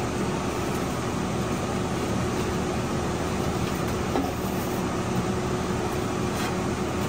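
Laminar flow hood's blower fan running: a steady rush of air through the HEPA filter with a faint constant hum.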